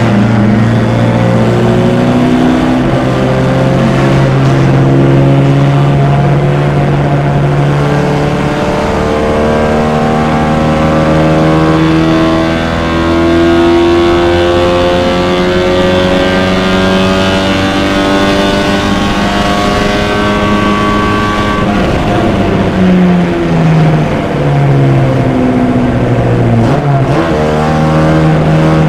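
Vintage MG race car's four-cylinder engine heard from on board at racing speed. It is held at high revs and slowly climbs for most of the stretch, then makes several quick drops and jumps in pitch about three-quarters of the way through, as with a lift and gear changes, before pulling again.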